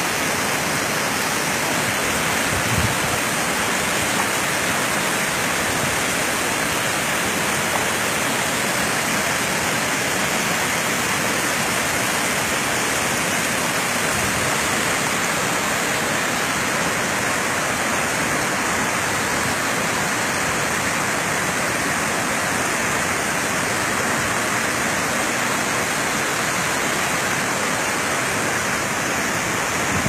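A large waterfall pouring down a rock face onto rocks and into a pool: a steady, unbroken rushing of falling water, with one brief low thump about three seconds in.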